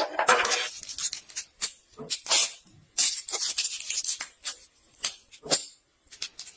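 Packaging being handled and opened: crinkling, rustling and sharp clicks and taps in irregular bursts, with a brief pause near the end.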